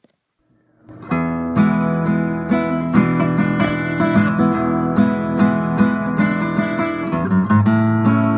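Background music: strummed acoustic guitar, starting about a second in after a short silence.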